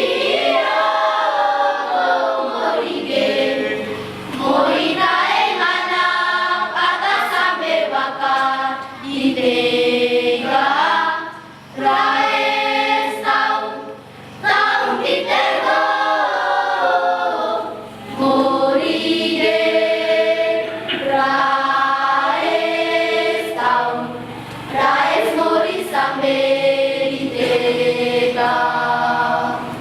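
Children's choir singing a church hymn in sung phrases a few seconds long, with short breaks for breath between them.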